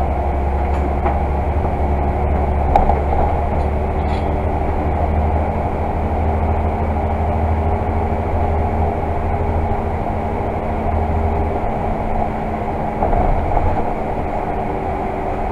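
Volvo Super Olympian 12 m double-decker bus on the move, heard from inside on the upper deck: a steady diesel engine drone and road rumble with a deep low hum that eases off about three-quarters of the way through, and a few faint clicks and rattles.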